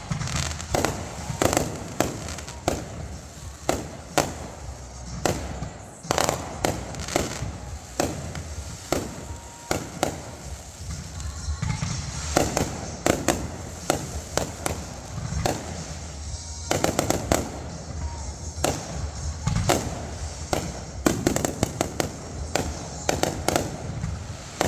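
Fireworks going off: a rapid, irregular string of sharp bangs and crackles, many a second.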